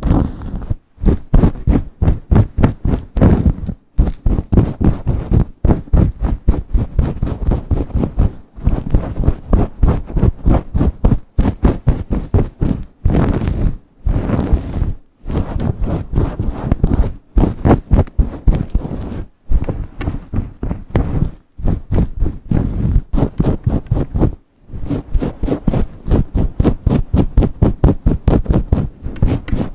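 Long acrylic nails and fingers rubbing and scratching quickly through hair: a fast, dense run of rough rustling strokes, several a second, broken by short pauses every few seconds.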